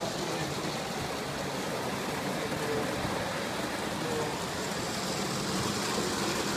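Prewar Hornby O gauge tinplate trains running on three-rail metal track, making a steady, even rushing noise.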